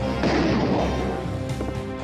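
Music with a loud, noisy crash-like hit just after the start that dies away within about half a second, followed by steady held notes.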